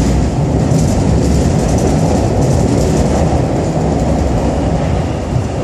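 Steady rumble and wheel-on-rail noise inside a moving MTR South Island Line S-Train car running through a tunnel, with most of the sound deep and low.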